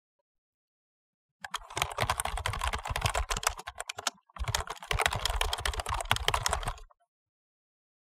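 Fast typing on a mechanical keyboard: a dense, rapid run of key clicks, broken by a short pause midway, then a second run that stops about a second before the end.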